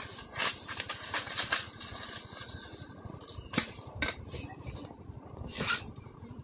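Rustling and crunching of dry fallen leaves underfoot, with a few sharp clinks as a metal pot is set down and handled.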